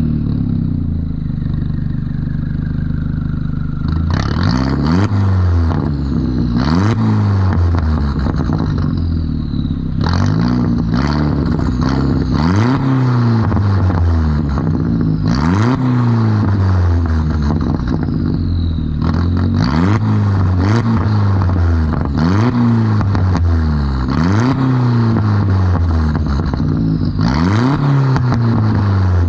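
2003 VW New Beetle 1.8T's turbocharged four-cylinder engine, exhausting through a 3-inch catless downpipe and Cherry Bomb glasspack muffler, idles for a few seconds. It is then revved about ten times, a rev every two to three seconds. A loud, high turbo whistle falls away as each rev drops back.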